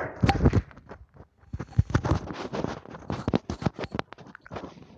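Handling noise close to the microphone: a dense run of irregular rustles, scrapes and clicks, stopping shortly before the end.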